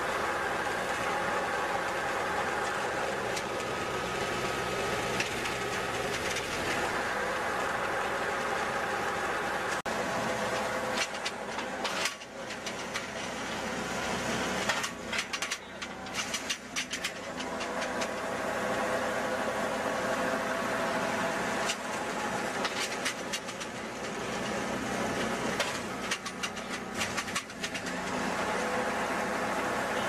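Engine-driven Christmas tree baler running steadily, with spells of sharp clicking and clattering partway through and again near the end.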